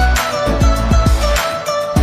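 Background music with a beat of deep bass drum hits that drop in pitch, under a sustained melody.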